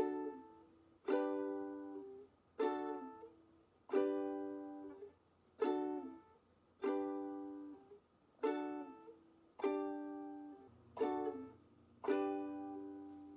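Ukulele strummed one chord at a time, switching back and forth between D and G: about ten single strums, each left ringing and fading before the next, as a chord-change drill.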